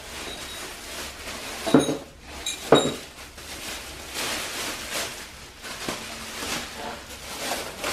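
Clear plastic bag rustling and crinkling as it is pulled up and off a small engine, with two sharp knocks about two and three seconds in.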